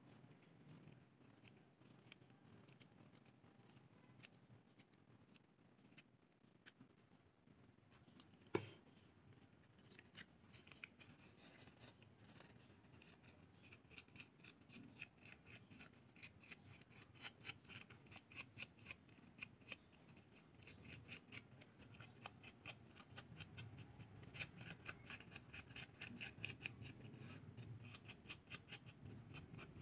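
Small scissors snipping repeatedly as they cut fine fringe slits into a paper feather shape. The snips are faint and come sparsely at first, then in a quick run of several a second, with one sharper click about a third of the way in.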